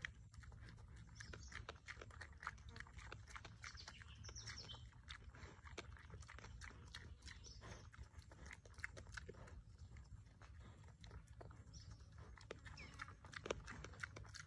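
A young wild pig chewing grain off the ground: quiet, quick, irregular crunches throughout.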